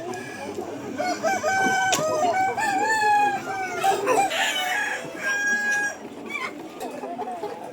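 A flock of chickens calling over one another: roosters crowing against a background of hens clucking, with several long overlapping crows in the first half.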